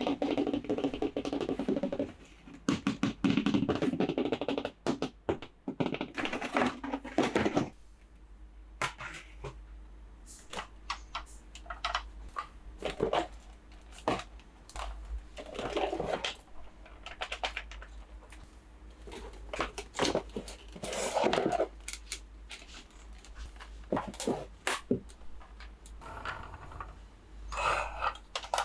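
Plastic toys and packaging being handled: scattered clicks, knocks and short scrapes and rustles. For the first eight seconds a louder, denser sound with a low steady tone runs under the handling, then stops.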